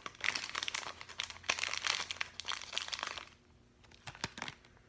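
Thin clear plastic wrapper of a LOL Surprise accessory bag crinkling and crumpling as it is worked open by hand for about three seconds, then a couple of faint clicks near the end.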